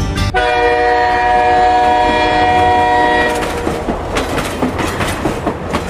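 A train horn sounds one steady chord for about three seconds, then gives way to the clickety-clack of train wheels over rail joints.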